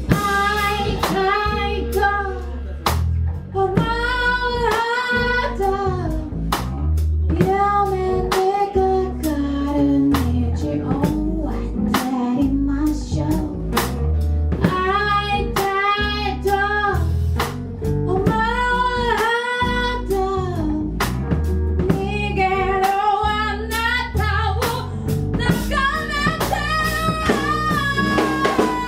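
A band playing a song: a singer holds long, wavering notes over drums, bass and guitar.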